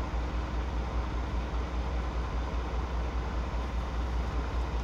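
Steady low rumble of an idling truck's diesel engine, heard from inside the truck cab.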